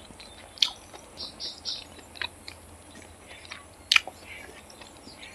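Close-up mouth sounds of a person chewing a mouthful of fried rice and chicken curry: quick wet smacks in short runs, three in a row about a second in, with a few sharp clicks, the loudest near the end.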